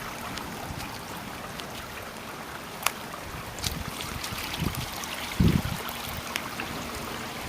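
Rain falling steadily, a steady wash of water with many small drop ticks. A sharp tap about three seconds in and a low thump about five and a half seconds in.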